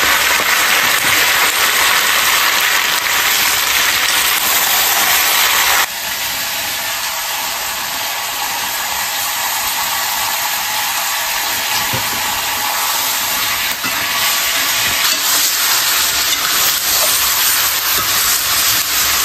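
Chopped pork sizzling in a hot iron wok, a loud steady hiss just after the raw meat has gone in; it dips slightly about six seconds in and carries on.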